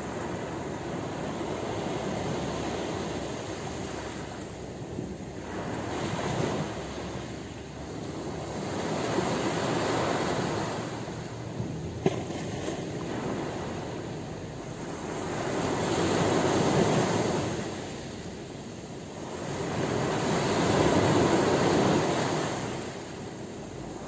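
Small waves breaking and washing up a pebbly beach, the surf swelling and fading five times, every four to six seconds. A brief click sounds about halfway through.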